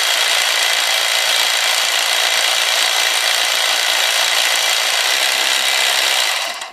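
Electric jigsaw running at full speed with no load, its blade stroking in the air with a steady, loud motor whine. It is switched off near the end and the sound dies away quickly.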